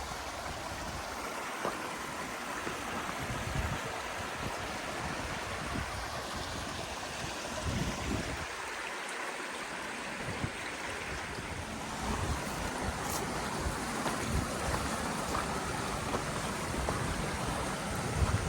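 Stream water running with a steady rushing sound, with a few brief low thumps here and there.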